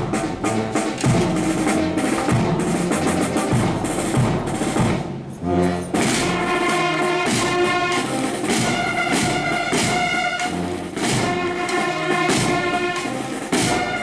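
Military marching band playing: massed snare drums beat a rapid cadence, then about five seconds in, after a brief break, the brass comes in loud with sustained chords over the drums.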